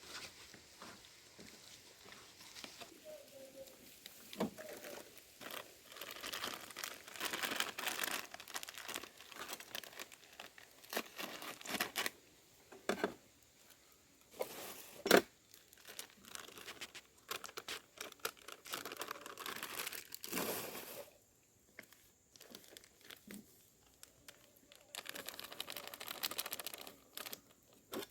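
Kitchen handling noises: irregular crinkling and rustling in bouts, with a few sharp knocks, the loudest about halfway through.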